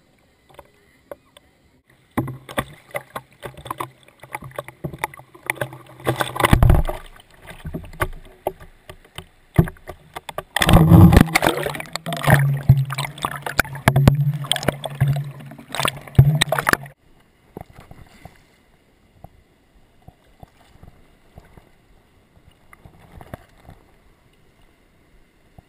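GoPro in its waterproof housing being knocked about and dunked in the muddy river: about two seconds in, a run of loud knocks, rumble and splashing begins, loudest in its second half, and it stops abruptly. Then comes faint lapping water and paddle noise.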